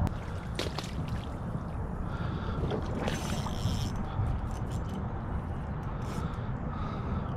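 A steady low rumble, with scattered clicks and rustles and a short hissy scrape about three seconds in: an angler moving along a leafy creek bank and handling a spinning rod and reel.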